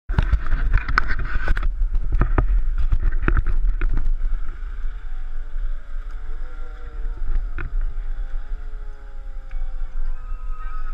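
Wind rumbling on the microphone of a pole-mounted camera, with knocks and rattles of the pole being handled for the first four seconds. From about five seconds faint sustained, slowly gliding tones come in under the wind.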